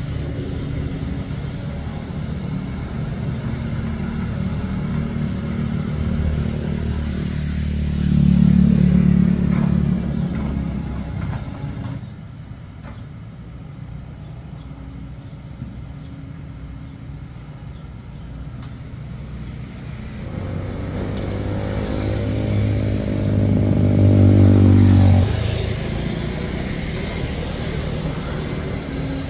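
Kobelco SK200 hydraulic excavator's diesel engine running, rising in pitch and loudness under hydraulic load twice, once about a third of the way in and again for several seconds near the end, and quieter in between. Occasional light clanks.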